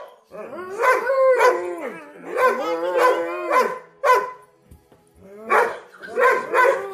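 Weimaraner barking: long, wavering, drawn-out barks through the first half, then short single barks, one about four seconds in and three more in quick succession near the end.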